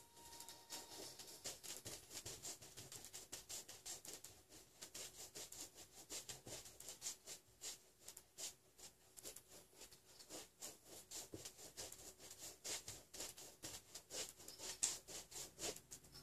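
Paintbrush scrubbing oil paint onto a large canvas in quick back-and-forth strokes: a faint, scratchy rubbing repeated several times a second.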